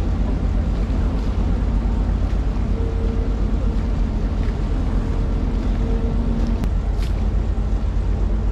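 A boat's engine running steadily while under way: a constant low rumble with a faint steady hum over it.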